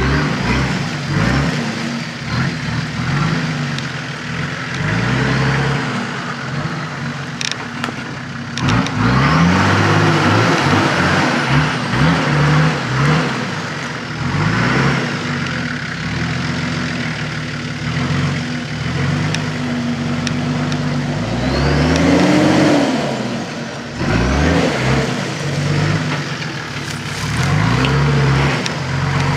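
Four-wheel-drive wagon's engine revving in repeated surges as it climbs a steep, rutted mud hill. The revs rise and fall every few seconds as the driver works the throttle through the ruts.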